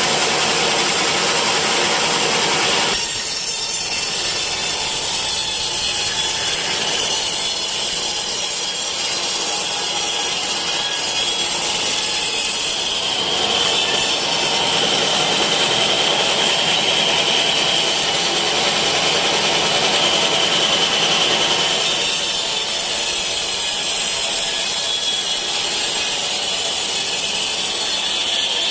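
Sawmill saw cutting teak wood: a continuous loud sawing noise, with a steady high whine through the middle stretch.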